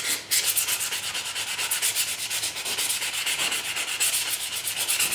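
Sandpaper rubbed by hand over a wooden knife handle in quick back-and-forth strokes, about five or six a second, a dry scratchy rasp with a brief pause just after the start.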